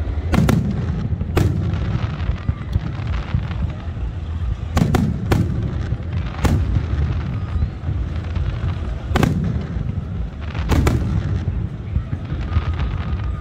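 Aerial firework shells bursting overhead: about ten sharp bangs, several in quick pairs, each trailing off into a low rolling rumble that fills the gaps between them.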